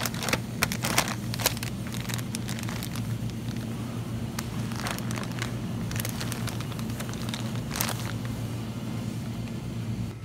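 Plastic food packages crinkling and rustling as they are handled in a wire shopping cart, with scattered sharp crackles over a steady low hum.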